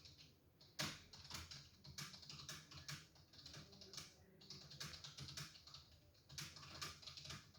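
Faint typing on a computer keyboard: irregular single keystrokes, about two to three a second.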